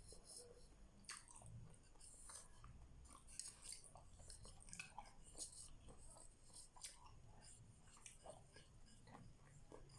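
Faint close-up chewing of grilled isaw (skewered chicken intestine), with many small wet mouth clicks.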